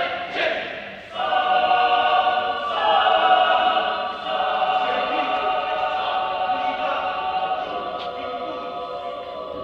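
Mixed adult choir singing a church choral piece: a short break about a second in, then long held chords that slowly grow softer.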